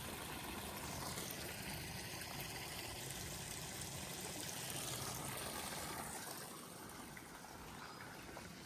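A small mountain stream running and trickling, a steady wash of water that fades somewhat in the last couple of seconds.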